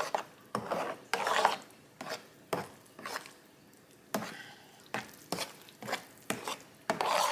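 A metal spoon stirring a wet breadcrumb-and-chicken dressing mixture in a baking pan: repeated sharp clinks of the spoon against the pan, with soft scraping of the mixture between them.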